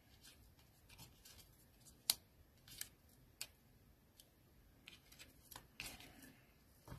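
Small craft scissors snipping paper, a scattering of faint, short clicks spaced irregularly about half a second to a second apart.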